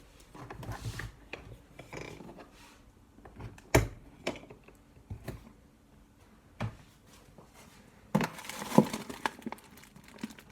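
Irregular clicks, knocks and rustling of objects being handled, with one sharp knock about four seconds in and a burst of rattling near the end.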